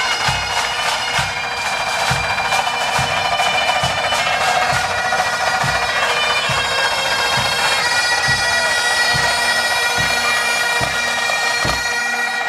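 Pipe band playing: Highland bagpipes carry a melody over their steady drone, with snare drums and a bass drum beating about twice a second. The drums stop near the end while the pipes hold on.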